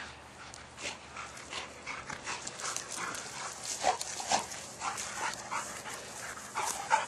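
A dog panting hard and fast, close by, a rapid string of short huffs, out of breath from running.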